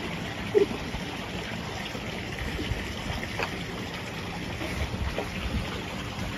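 Pool water sloshing and lapping gently as a small child swims with an adult beside him, with one short louder blip about half a second in.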